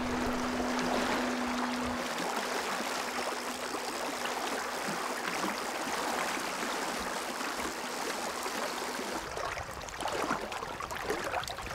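River water rushing past, a steady even noise, with a faint steady hum under it that stops about nine seconds in. Near the end the water sound becomes more uneven.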